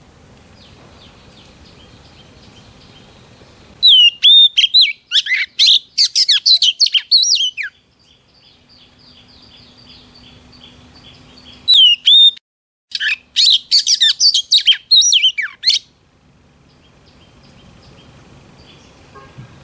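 Female oriental magpie-robin singing two loud phrases, each opening with a slurred whistle and breaking into a rapid run of sharp, varied notes. This is song meant to rouse males. Between the phrases runs a fainter, steady series of quick repeated notes.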